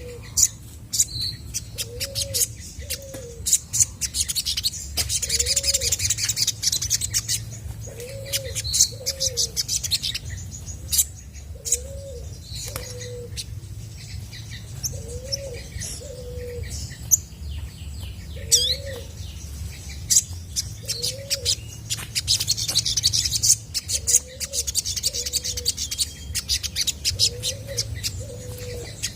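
Olive-backed sunbird singing: rapid, high-pitched chirps and buzzy trills in bursts. Under it a low two-note call recurs every second or two.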